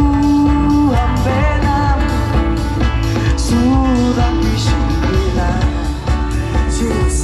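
Live band playing amplified music over a PA, with a singer holding long, wavering notes over a steady drum beat, heard from within the crowd.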